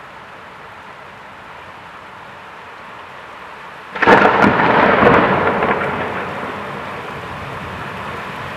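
A thunderclap over steady rain: about four seconds in, a sudden loud crack that rumbles on and fades away over the next two to three seconds.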